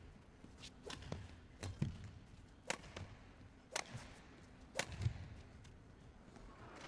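Badminton rally: sharp cracks of rackets striking the feather shuttlecock, the strongest three coming about a second apart, with lighter clicks and thuds in between over faint arena background noise.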